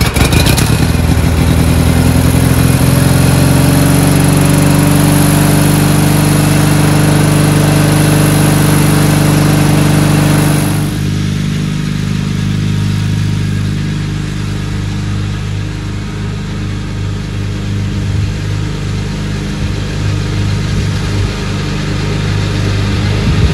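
Kohler Magnum M18 air-cooled twin-cylinder engine on a Gravely garden tractor running just after starting, its pitch creeping slowly upward. About eleven seconds in the sound turns quieter and duller: the same engine heard from farther off as the tractor drives.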